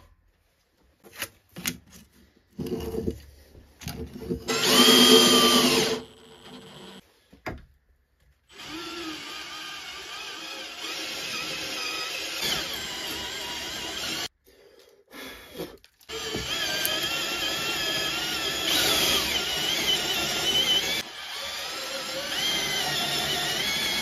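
A power drill with a twist bit bores into a wooden block through a 3D-printed plastic stencil. The motor runs in long stretches with its pitch wavering under load, broken by short pauses. The first seconds hold only short, broken sounds.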